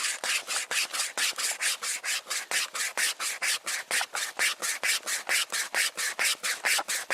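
Pocket string saw rasping through a wooden log, pulled back and forth by two people in a fast, even rhythm of about five strokes a second.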